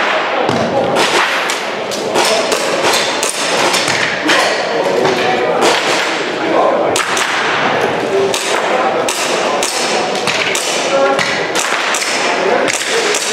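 Airsoft pistol firing in quick, irregular strings of sharp cracks as the shooter engages targets, several shots a second at times with short gaps between strings.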